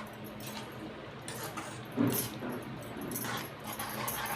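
Metal spoon clinking and scraping in a cooking pan as sev is stirred into tomato curry, over a steady low hum, with one louder short sound about two seconds in.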